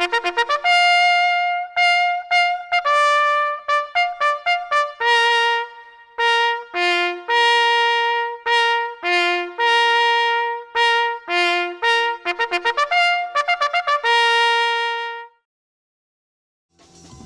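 Bugle call played through a Federal Signal Modulator outdoor warning and PA system: a brisk run of short notes and longer held notes on the bugle's few fixed tones, ending about 15 seconds in. After a short silence, other music begins at the very end.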